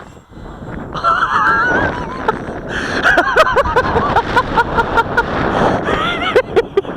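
People laughing in a run of short ha-ha bursts starting about a second in, with sharp clicks throughout.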